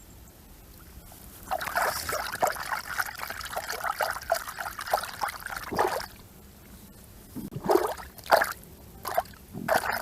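Water splashing and trickling: a run of quick splashes lasting about four seconds, starting over a second in, then a few short separate splashes near the end.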